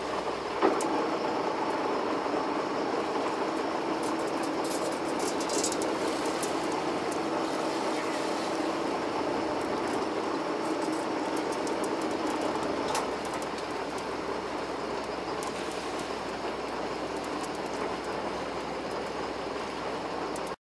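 A fishing boat's engine running steadily under a hiss of water and wind, with a few faint clicks a few seconds in. The drone drops a little about two-thirds of the way through.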